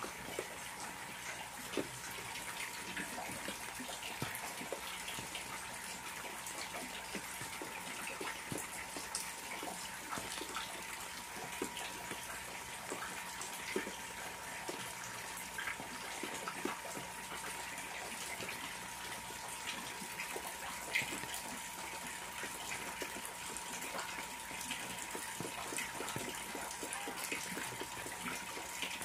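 Steady rain falling on a garden pond and the leaves around it, with many separate drops striking. A faint steady hum runs underneath.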